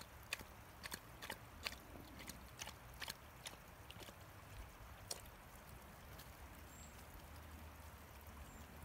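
Small forest brook trickling over stones: a faint, soft wash of water with irregular sharp plinks and ticks through the first half, then only the steady wash, over a low rumble.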